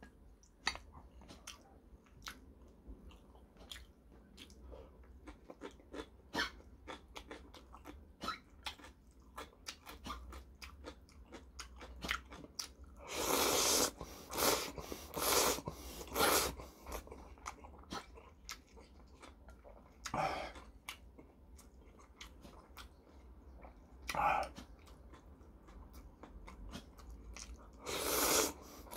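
Close-up chewing with many small wet clicks, then ramen noodles slurped in several loud bursts a little before halfway, with single slurps later and near the end.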